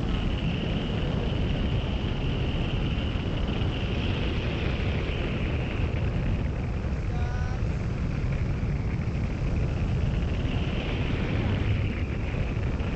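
Wind rushing past a hang glider in flight and buffeting the wing-mounted camera's microphone: a steady low rumble with a higher hiss that swells and fades a little. A brief short tone comes about seven seconds in.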